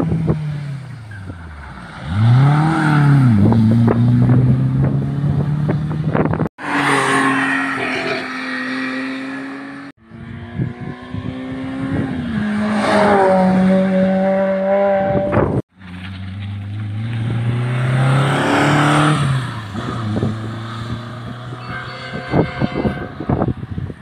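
Hill-climb cars accelerating hard up the road one after another. Each engine revs up, rising in pitch, then drops back at each gear change, with tyre and road noise. The sound breaks off abruptly three times where the footage cuts from one car to the next.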